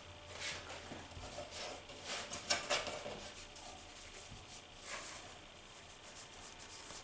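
Soft rubbing and rustling of a cotton cloth and floured sourdough dough being handled: the dough ball is lifted off a wooden board and pressed down into a cloth-lined bowl.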